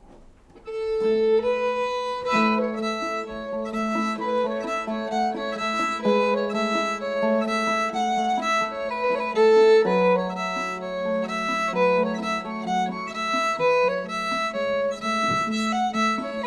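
Fiddle playing a quick melody over a steady held low note, starting about a second in.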